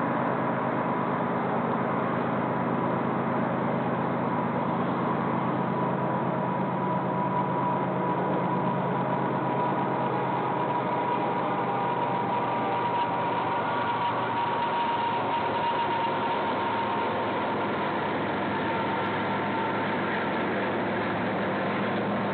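Steady hum of distant vehicles, with a faint steady whine above the low rumble; the low part eases a little after the middle.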